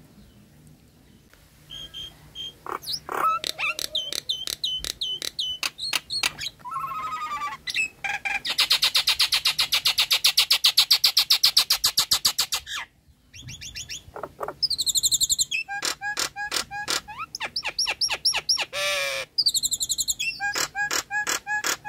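Nias hill myna calling: loud whistles and sharp repeated notes, with a fast, dense rattling chatter lasting about five seconds in the middle and a brief pause after it.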